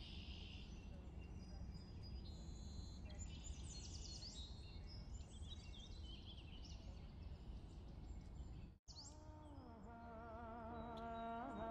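Low outdoor ambience with many small birds chirping, busiest in the middle. Near the end the sound drops out for an instant, then background music with wavering held notes comes in and grows louder.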